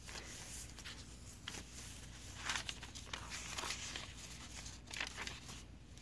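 Pages of a thick handmade paper journal being turned by hand, with several soft paper rustles.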